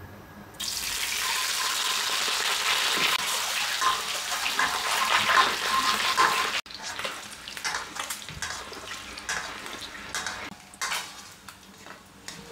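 Peeled hard-boiled eggs dropped into hot oil in a wok, setting off loud sizzling about half a second in. The sizzle cuts off sharply partway through, giving way to quieter frying crackle with scrapes of a spatula as the eggs are turned.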